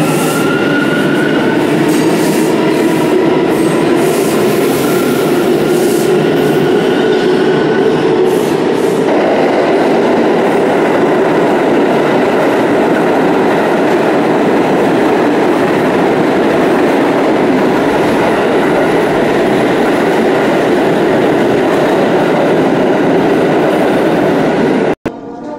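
New York City subway trains running through the station. A departing train's motors whine, rising in pitch over the first two seconds, then a loud steady rumble and rattle of cars rolling over the tracks. It cuts off abruptly near the end.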